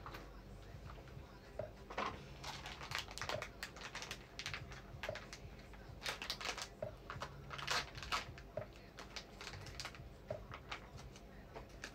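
Clear plastic bag crinkling and rustling as it is handled, in irregular bursts of crackles that are busiest through the middle.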